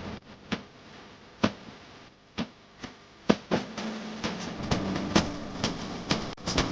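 A series of irregular sharp taps and knocks, sparse at first and coming more often after about three seconds.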